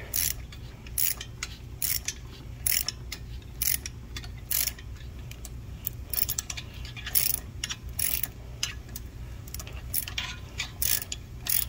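Ratchet clicking in short bursts, about once a second, as it turns a square-drive tap driver socket to hand-tap a 3/8-16 thread into a stripped bolt hole in an aluminum intake. A steady low hum runs underneath.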